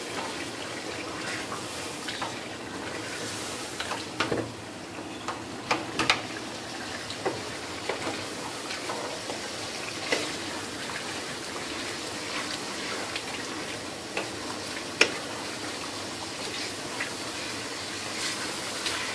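A chicken karahi curry sizzles and bubbles in a wide metal pan on a gas burner as the yogurt's water cooks off. A spoon scrapes and knocks against the pan now and then, with the sharpest knocks about a third of the way in and about three-quarters through.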